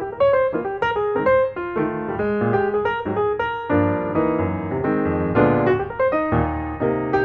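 Background piano music: a quick run of notes over low bass notes.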